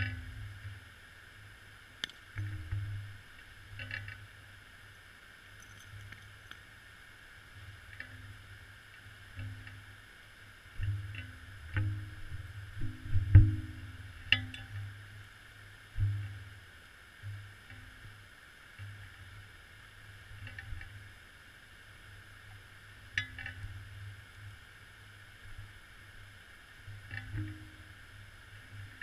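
Muffled, irregular low thumps and a few sharp knocks picked up by a GoPro sealed in its underwater housing, over a steady hiss.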